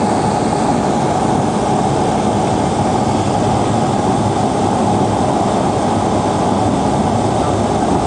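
Cabin noise of a small high-wing propeller plane rolling down the runway after landing: a steady engine and propeller drone mixed with wind and rolling noise.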